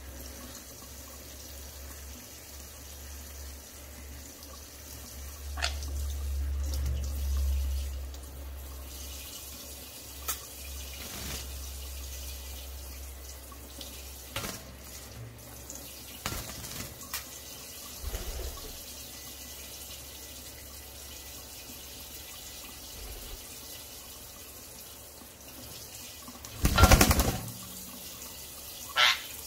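Kitchen faucet running steadily into a stainless steel sink while a sun conure bathes in the stream, with a few short splashes and a loud burst of splashing near the end as the bird flaps and shakes its wet feathers.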